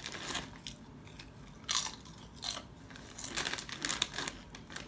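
Doritos tortilla chips being bitten and chewed, with a few sharp crunches spread irregularly through the chewing.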